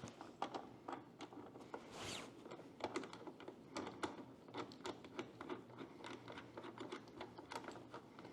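Faint, irregular clicks and scrapes of a dovetail base's mounting screw being turned by hand into the threaded base of a Seestar S50 smart telescope.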